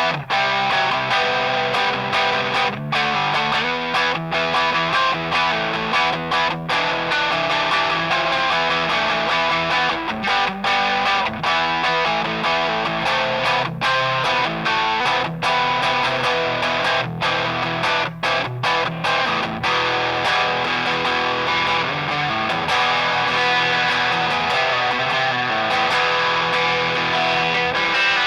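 Electric guitar played through a Grindcustoms Feng Drive overdrive pedal, with strummed chords and riffs in a driven, slightly distorted tone, broken by many brief stops between chords.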